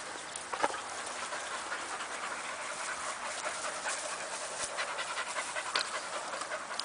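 A dog panting steadily.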